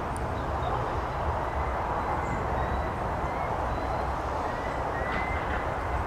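Hitachi tracked excavator running as it digs, a steady low engine rumble with a faint thin whine above it.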